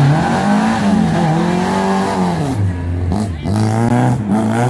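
Lada saloon's four-cylinder petrol engine revving hard as the car pulls away on a time-attack run. The revs climb and fall back several times, with a deeper drop about two and a half seconds in and then a few short rises and falls near the end.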